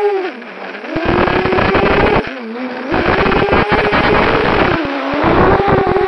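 Small FPV drone's electric motors and propellers whining, picked up by the onboard camera, the pitch dropping and rising again several times as the throttle changes. About a second in a rough rushing noise joins the whine while the drone dives low.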